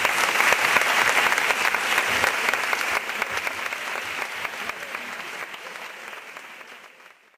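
Theatre audience applauding: dense clapping that gradually fades away and cuts off just before the end.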